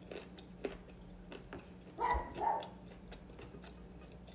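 Quiet chewing at the table with scattered faint clicks of a fork against a plate, and a short murmur about two seconds in.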